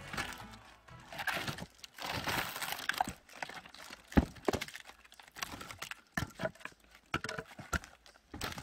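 Firewood being split and handled: a run of irregular wooden knocks and cracks, the sharpest strike about four seconds in.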